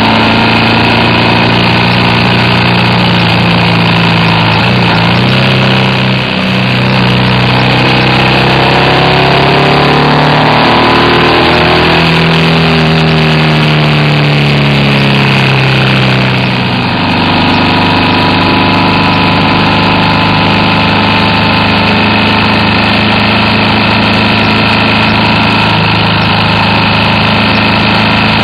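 BMW R1200RT's air/oil-cooled flat-twin engine running on the move, with wind and road noise over it. The engine note climbs and falls through the middle, with a brief dip about 6 seconds in and another about 17 seconds in.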